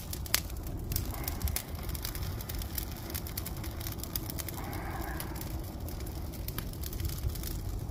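Brush and branches burning in a metal burn barrel, crackling with scattered sharp pops over a low steady rumble.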